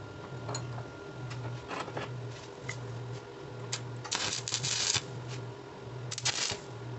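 Stick (arc) welder tack-welding a small steel part held in a vise: two crackling, sizzling bursts of arc, the first about a second long and the second about half a second, as the rod is struck. A few light clicks come before, over a low hum.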